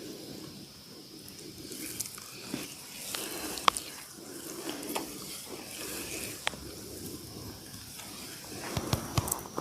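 Oiled hands rubbing and squishing over skin in a massage, with a few sharp clicks or slaps, the loudest about three and a half seconds in.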